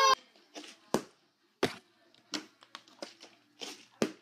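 Plastic water bottles being flipped and knocking down on the floor: a string of sharp taps and clatters at uneven intervals, with a loud knock about four seconds in as a bottle lands upside down on its cap.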